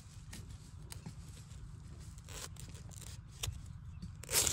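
Dry bamboo leaves and forest-floor litter rustling and crackling in scattered small clicks over a low steady rumble, with one louder rustle near the end.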